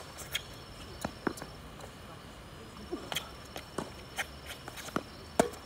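Tennis ball being struck by rackets and bouncing on a hard court during a rally: a string of sharp, short pops, about eight in all, the loudest near the end.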